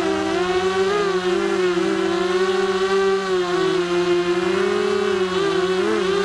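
Emax Nighthawk 280 Pro FPV quadcopter's brushless motors and propellers whining steadily. Several close pitches waver slightly up and down as the throttle shifts.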